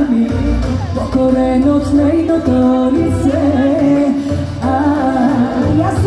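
A woman singing a song in phrases over amplified backing music with a steady bass, heard through the stage's PA loudspeakers.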